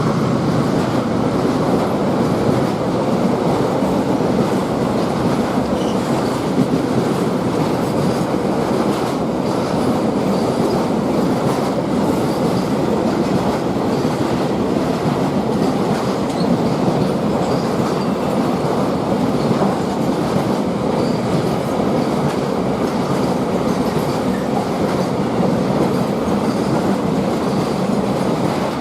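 Freight train wagons rolling through without stopping: a steady rumble and clatter of wheels on the rails, with no horn.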